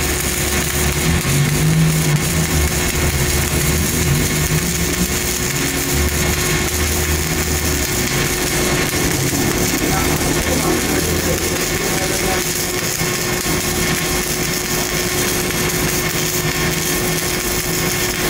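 Arc welding in progress: a steady crackling hiss from the electric arc, over a steady hum and a low mechanical drone that is heaviest in the first half and fades after about eleven seconds.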